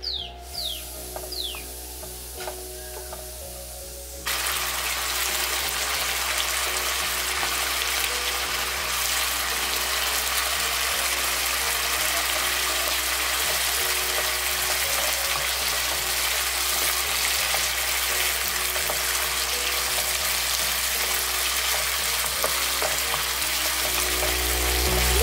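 Beef curry sizzling in a nonstick frying pan. The sizzle starts suddenly about four seconds in and then runs steadily, with light scrapes and taps of the spatula as the meat is stirred.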